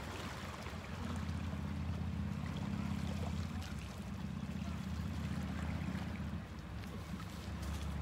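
Small sea waves lapping and washing over low shoreline rocks, with a steady low hum underneath.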